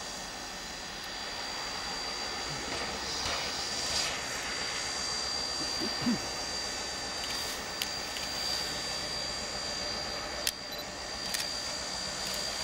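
Steady hiss of steam venting from a standing 2-6-2T tank steam locomotive, under the low drone of a diesel locomotive running in the distance. A few sharp clicks come near the end.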